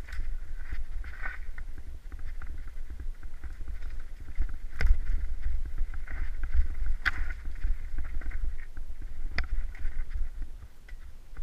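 Mountain bike descending a rocky trail at speed: steady wind rumble on the helmet microphone with tyres rattling over loose stones, and a few sharp knocks as the bike hits rocks.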